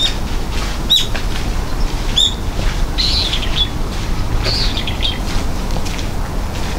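Wild birds chirping: a series of short, sharp calls about once a second, some in quick runs of notes, over a steady low rumble.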